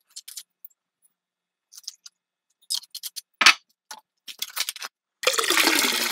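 Short clinks and knocks of ice cubes and bottles against a glass, then, for about the last second, cola pouring over the ice and fizzing.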